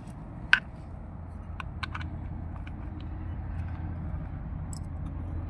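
A steady low rumble, like a motor running, with a few small sharp clicks and taps from the screws and fittings being worked loose, the loudest about half a second in.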